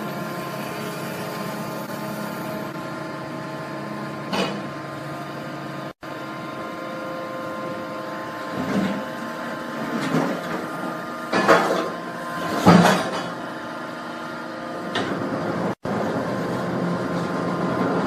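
Hydraulic scrap metal baler and its loading machinery running with a steady hum, while scrap metal being dropped into the baler's chamber clatters several times, loudest about twelve and thirteen seconds in. The sound cuts out for an instant twice.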